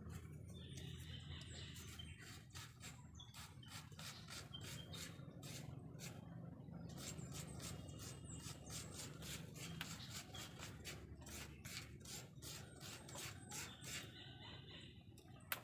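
Faint rustling, scraping and light clicking of a paper and small objects handled on a wooden table. A few faint bird chirps sound near the start and again near the end.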